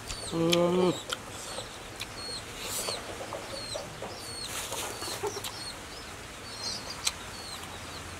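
Chickens clucking and peeping in the background: many short, high, falling peeps repeat throughout, with one louder, lower call about half a second in. Faint clicks of eating by hand come and go.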